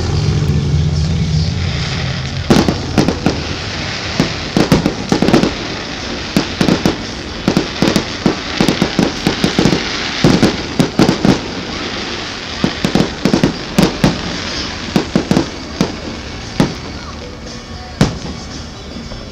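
Aerial firework shells bursting: a rapid, irregular run of sharp bangs that starts a couple of seconds in and thins out near the end, with a last single bang.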